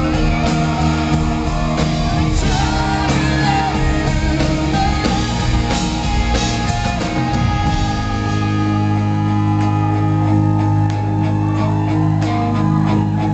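Live rock band playing, with electric guitar, drums and a male lead singer. About eight seconds in, the band moves to long held chords.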